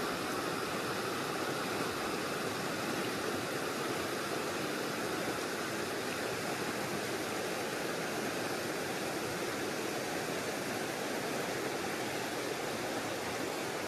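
Creek water rushing over rocky riffles: a steady, even rush of moving water.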